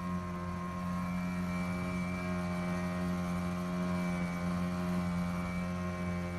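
An engine running steadily at an even speed: a low, unchanging drone with a strong hum.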